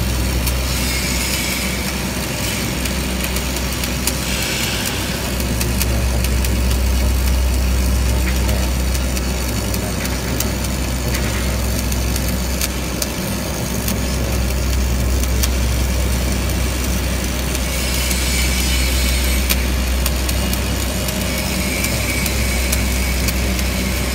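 Stick (shielded metal arc) welding on steel: the electrode's arc crackling and hissing steadily as it burns along a corner joint, over a steady low machine hum.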